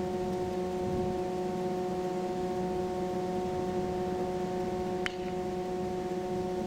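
A steady hum made of several fixed tones over a low rumble, unchanging throughout, with a single sharp click about five seconds in.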